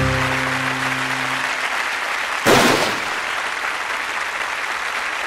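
End-card music with a few held notes, dying out about a second and a half in, over steady applause. A sudden loud bang about two and a half seconds in, as in a blast sound effect.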